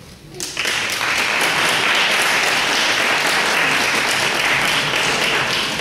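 Audience applauding in a large hall: the clapping starts about half a second in, swells quickly and holds steady before falling away near the end.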